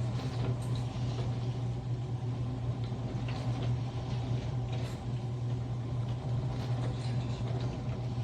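AIRMSEN countertop mini dishwasher running: a steady low motor hum under a rough, noisy wash sound, with faint scattered ticks.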